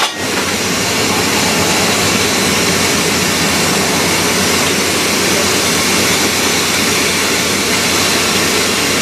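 Oil-fired steam locomotive hissing loudly and steadily with steam from its blower and atomizer while its fire is being lit.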